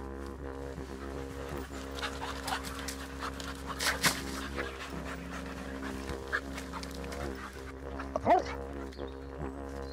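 Steady didgeridoo drone with dogs moving about and a single short dog yelp that rises and falls near the end.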